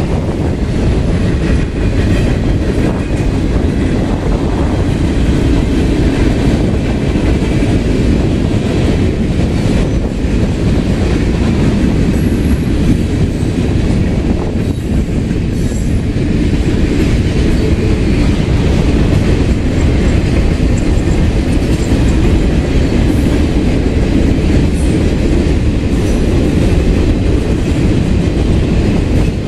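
A CSX mixed freight train's cars rolling past, a steady loud rumble of steel wheels on the rails.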